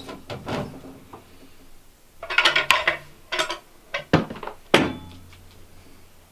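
Clanking and knocking of hard objects: scattered knocks, a clattery run of metallic clanks about two seconds in, then two sharp knocks a little past the middle.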